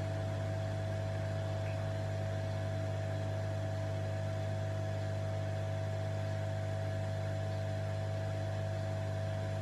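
Hot air rework station blowing steadily: an even hum of its blower with a rushing air hiss, as the nozzle heats surface-mount resistors on solder paste up to reflow.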